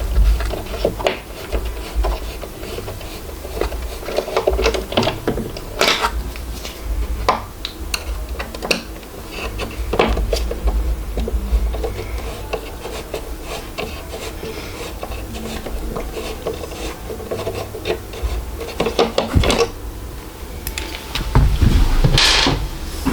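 Printer packaging being handled by hand: packing material rubbing and scraping, with many scattered knocks and clicks.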